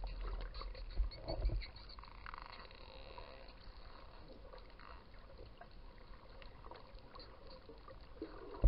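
Underwater sound picked up through a camera housing: spinner dolphins clicking many times, with faint whistles in the middle. Low rumbling water noise runs through the first couple of seconds, with two low bumps about a second in.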